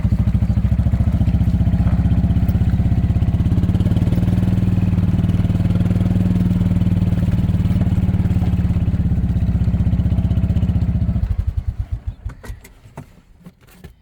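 Small gas engine of a farm golf cart running steadily, then switched off about eleven seconds in, its firing pulses slowing as it dies away. A few faint knocks follow.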